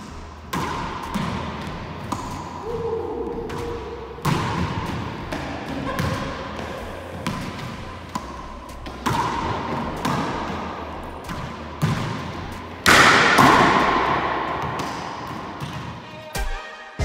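Racquetball rally: repeated sharp smacks of the ball off the racquet, walls and hardwood floor, each echoing in the enclosed court, with one much louder hit about thirteen seconds in.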